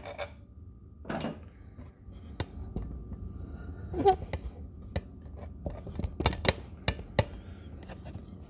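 Irregular clicks and light knocks of metal parts being handled as an electric scooter's rear hub-motor wheel is fitted back into its swingarm, with a cluster of sharper knocks about six seconds in.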